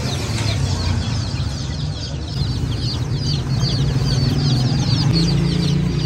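A crowd of chicks and young chickens peeping without pause in short, high, falling chirps. A steady low hum runs underneath.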